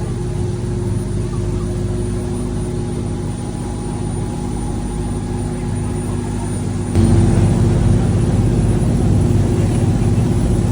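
A motor vehicle's engine running steadily, with a low hum that jumps up sharply in loudness about seven seconds in.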